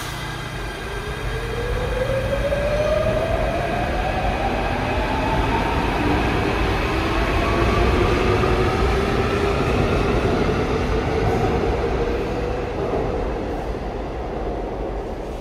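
Seoul Metro Line 2 electric subway train pulling out, its traction motors giving a whine that rises steadily in pitch as it accelerates, over a low rumble. The sound grows louder for the first several seconds, then the whine levels off and fades near the end.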